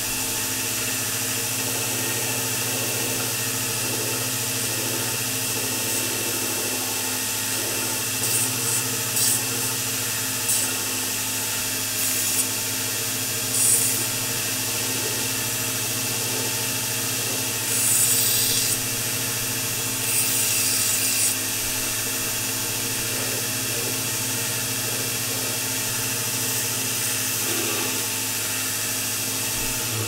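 Knifemaking belt grinder running steadily, its motor humming under the hiss of the abrasive belt. Several times a metal knife handle scale is pressed onto the belt, giving short, louder grinding passages, the longest about 18 and 20 seconds in.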